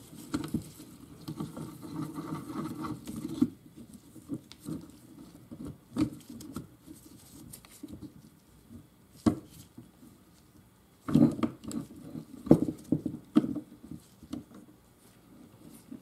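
Hand tools working on metal gearbox parts. A dense scraping rattle runs for the first few seconds, then scattered clicks and knocks follow, with a cluster of louder knocks about three-quarters of the way through.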